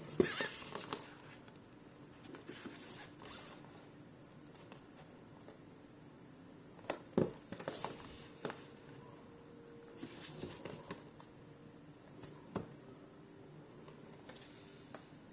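Handling noise from a plastic toy: scattered clicks, knocks and rustles, the sharpest right at the start, a cluster around seven to eight seconds in and another near twelve and a half seconds.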